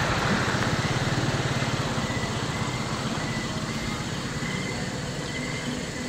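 Small motorcycle engine running with a steady low pulse, slowly fading.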